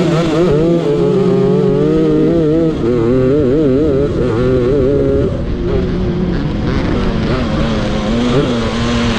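Several grass-kart engines running hard as a pack of karts accelerates away from a standing start, their notes wavering and overlapping. About five seconds in the pitch drops lower as the karts ease off.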